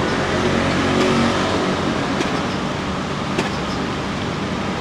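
Steady car noise heard inside a stationary car's cabin, with a couple of faint clicks partway through.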